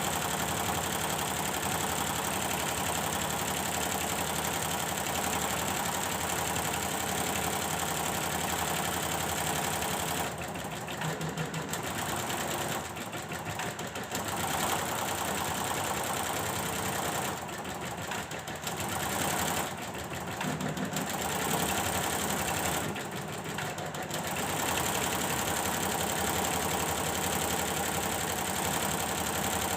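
Computerized embroidery machine stitching steadily, with about five short dips in its sound through the middle, where the stitching briefly eases off. It is on a test run after the power supply in its drive unit was repaired.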